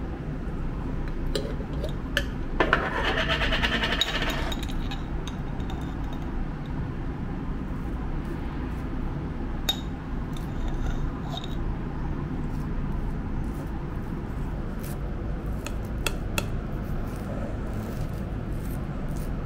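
A jam jar's lid being unscrewed with a gritty, rasping scrape about two to four seconds in, followed by a few light clicks and clinks and a table knife scraping jam across a crepe, over a steady low hum.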